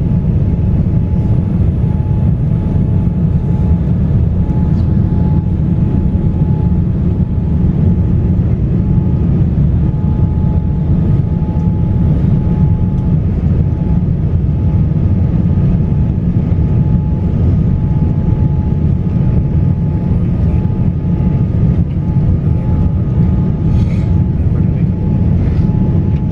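Steady low rumble of a Boeing 787-9 airliner's cabin as the plane rolls along the ground, with a faint steady whine above it.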